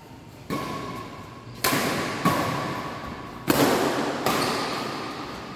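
Badminton rally: about five sharp racket strikes on the shuttlecock at uneven spacing, each ringing out in the reverberant sports hall.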